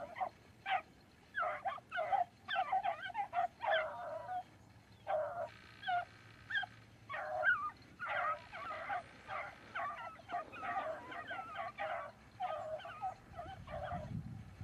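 Beagles baying and yipping in quick, repeated high calls, several voices overlapping: hounds giving tongue as they run a rabbit's trail.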